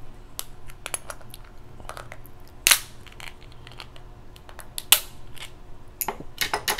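Crab leg shells cracking and snapping as they are broken open: a scatter of sharp cracks, the loudest about two and a half and five seconds in, with a quick run of them near the end.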